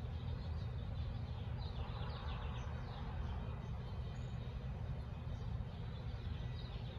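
Small bird chirping: a quick run of short, high notes about two seconds in and a few more near the end, over a steady low rumble of street background.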